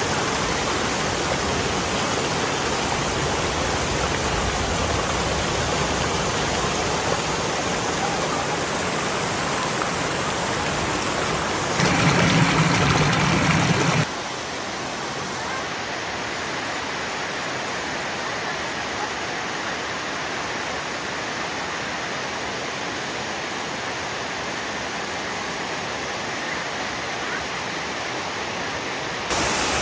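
Water pouring over a low stone weir, a steady rushing noise. It changes abruptly between clips: a louder, deeper stretch for about two seconds some twelve seconds in, then a quieter stretch until just before the end.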